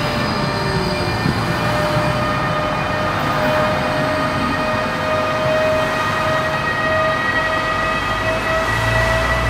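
Electric locomotive rolling slowly past at the head of a freight train, with a steady electric whine that creeps slightly up in pitch. Rail rumble runs underneath and gets heavier near the end.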